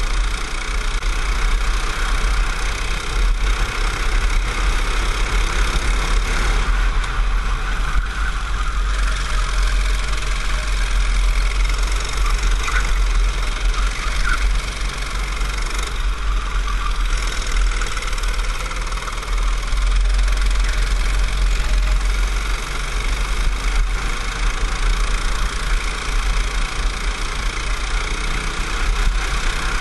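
Racing go-kart engine running steadily under way, heard from a camera mounted on the kart, with a heavy low rumble of wind and chassis vibration on the microphone.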